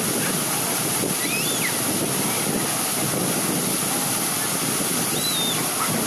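Waterfall pouring into a rocky pool: a loud, steady rush of falling water. A couple of faint high calls rise over it a little after a second in and near the end.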